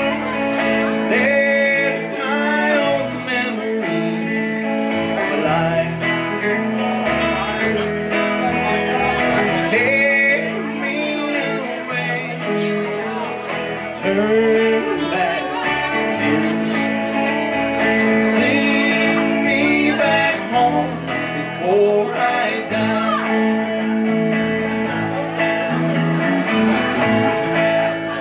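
Live country band playing a slow song: a Telecaster-style electric guitar, upright bass and acoustic guitar, with a man's singing voice.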